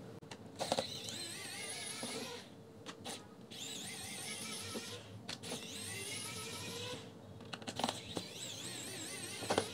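Cordless electric precision screwdriver backing out small screws: four short runs of motor whine, each rising in pitch as it spins up and then wavering under load, with a few sharp clicks of the bit in between.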